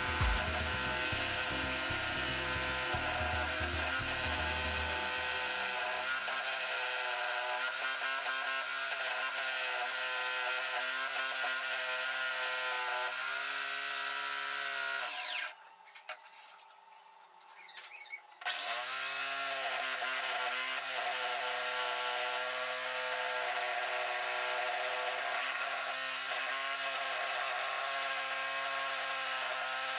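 Homemade mini scroll saw running, its blade cutting thin fibreboard with a steady mechanical drone and hiss. About halfway it is switched off and winds down, then starts up again about three seconds later and runs steadily on.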